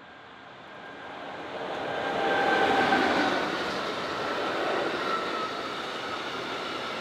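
Freight train passing, with a BB 27000-class electric locomotive at its head and tank wagons behind: the wheel-on-rail noise swells over the first two to three seconds as the locomotive goes by, then carries on steadily as the tank wagons roll past. A high whine slides slightly down in pitch through it.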